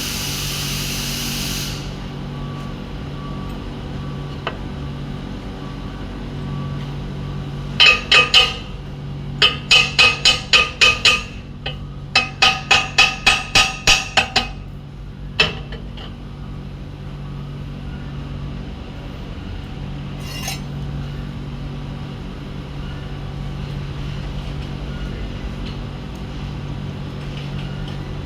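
A steel hammer rapping on a steel pipe in three quick runs of sharp, ringing metallic strikes, with a single last strike after them, as when chipping slag off a stick weld. A loud, even hiss-like noise cuts off about two seconds in, and a steady low hum runs underneath.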